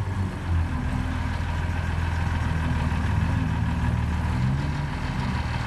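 Unimog race truck's diesel engine running at low, steady revs as the truck drives slowly through mud.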